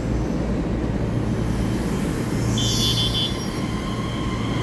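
Taiwan Railway EMU3000 electric multiple unit starting to pull out of the platform. There is a steady low rumble, a short hiss about two and a half seconds in, and then a steady high whine that sets in and holds.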